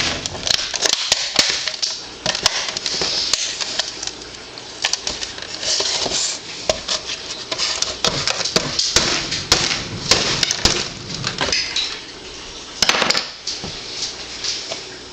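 Hard alarm clock casing being pried and knocked at with a tool to force it open: irregular clicks, knocks and scraping.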